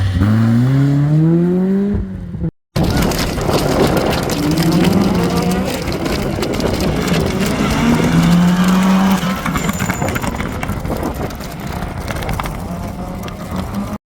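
Rally car engines at full throttle: one car's engine climbs in pitch as it accelerates, then after a short break another rally car runs hard with its engine note rising and dropping through gear changes, mixed with rough tyre and road noise.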